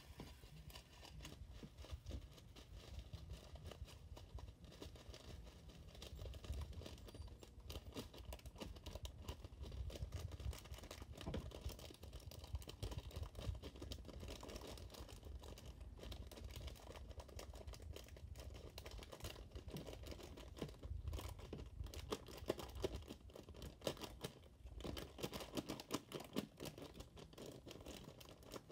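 Faint crinkling and rustling of a clear plastic bag of foam beads as fingers pick through it over a plastic tub, with many small irregular ticks.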